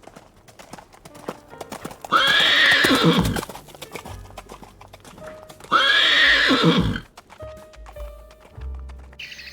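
A horse whinnying twice, each neigh about a second long and falling in pitch at the end, with the clatter of hooves, over background music.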